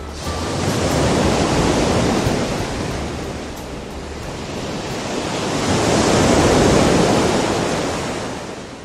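Sea waves washing on the shore, swelling twice, with wind on the microphone. The sound fades out near the end.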